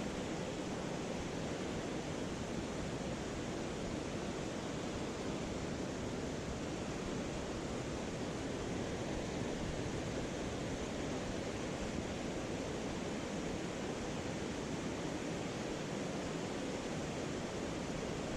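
Mountain stream water rushing steadily, an even wash of noise with no breaks.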